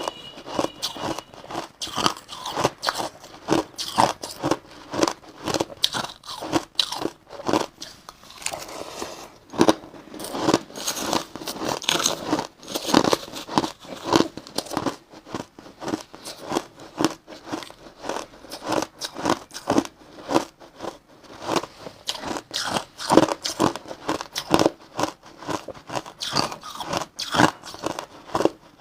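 Crushed ice being bitten and chewed close to the microphone: a steady run of loud, crackly crunches, several a second.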